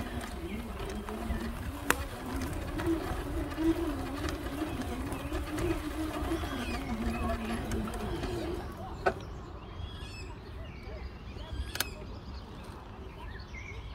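Outdoor ambience of birds and distant voices: a low, wavering call or murmur through the first eight seconds or so, then small birds chirping, with a few sharp clicks.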